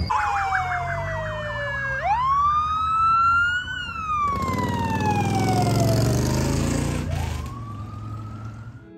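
Police vehicle sirens in a passing convoy: a slow wail falling and rising again several times, with a fast yelp over it in the first two seconds. A rushing noise of the vehicles going by rises between about four and seven seconds in.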